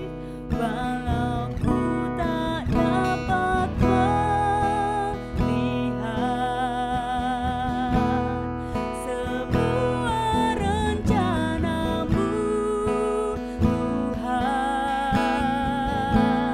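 A woman singing a worship song, accompanied by a strummed acoustic guitar.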